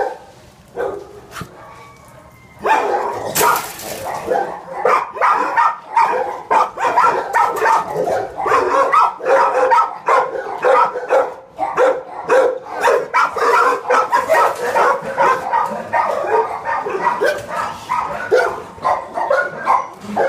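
Dogs barking in kennel runs: a few separate barks at first, then from about three seconds in a steady run of overlapping barks from several dogs.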